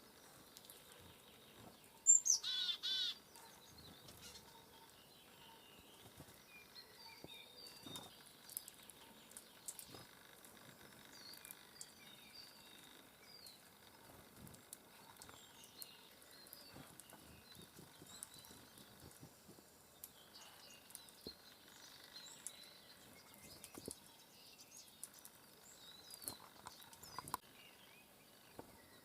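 Small songbirds calling: a loud, quick run of four pitched notes about two seconds in, then faint scattered chirps and small clicks.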